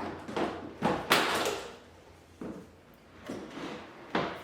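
Knocks and short scrapes from handling a dishwasher and its detached cabinet door panel, about six in all; the loudest is a half-second scrape about a second in.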